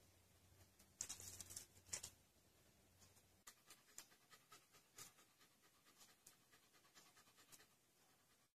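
Faint sounds of a dog: a brief rustle about a second in, then scattered soft clicks.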